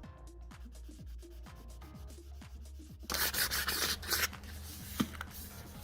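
Background music with a beat, then about three seconds in a loud stretch of sandpaper rubbing over the primed alloy wheel for about a second, followed by softer rubbing and a single sharp tick.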